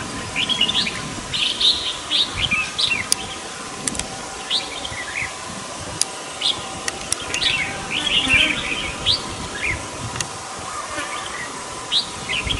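A flock of red-whiskered bulbuls calling: many short chirps overlapping, busiest in the first few seconds and again a little past the middle, with sparser calls between. A faint steady hum runs underneath.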